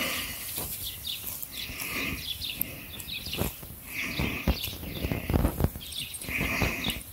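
Birds chirping: several short high calls a couple of seconds apart, over low bumps and rustling.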